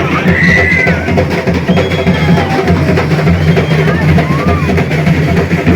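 Loud drum-led percussion music with a heavy bass drum, and voices calling over it.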